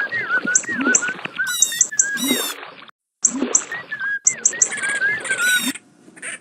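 Birds chirping: a fast run of short, repeated chirps and calls over a light background hiss. There is a brief break about three seconds in, and the sound stops abruptly near the end.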